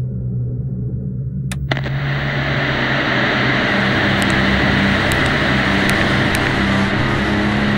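Low steady hum, then two clicks about a second and a half in as an old television set switches on, followed by a steady hiss of TV static.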